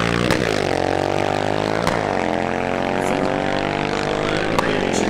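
A drag-racing motorcycle engine accelerating hard at full throttle down the strip, with a sharp break in the engine note at each upshift, three times.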